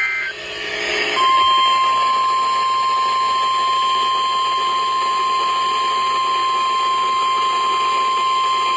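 NOAA Weather Radio Emergency Alert System signal: a brief warbling burst of SAME digital data tones, then about a second in the steady single-pitch 1050 Hz weather radio alert tone starts and holds, signalling that a warning broadcast is about to follow.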